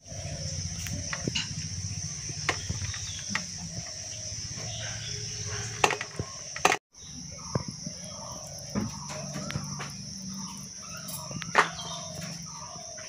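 Fingers mixing rice and fish curry on a steel plate: scattered light clicks and taps against the metal. Underneath runs a steady high-pitched chirring and a low hum, and the sound drops out briefly just before the seventh second.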